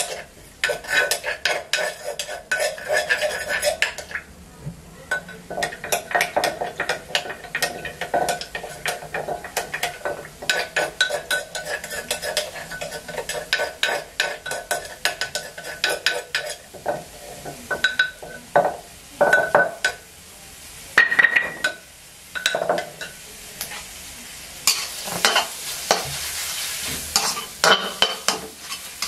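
Stir-frying in a wok: a metal spatula scrapes and clatters against the pan in quick strokes over sizzling oil, the sizzle growing louder in the last few seconds as the chicken fries.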